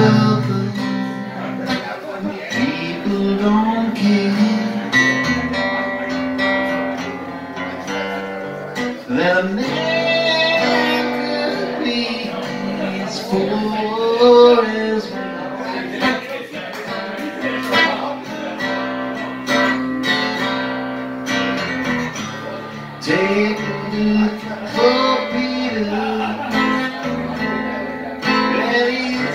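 Steel-string acoustic guitar strummed in a steady rhythm, with a man singing along at times in long rising and falling notes.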